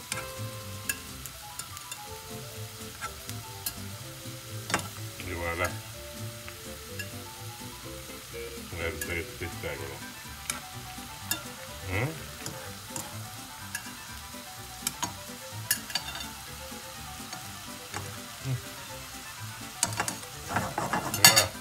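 Gurnard fillets sizzling in a pan of oil, white wine, lemon juice and parsley, the sauce bubbling steadily, with scattered sharp clicks of metal tongs against the pan as the fillets are laid in and moved.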